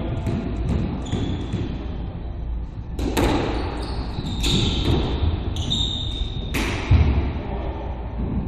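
Squash rally: the ball cracks off rackets and thuds against the walls several times, ringing in the hard-walled court, with short high squeaks of court shoes on the wooden floor in between.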